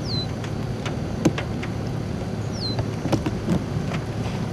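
A steady low hum with scattered light clicks. Twice, about two and a half seconds apart, a bird gives a short high whistle that slides downward.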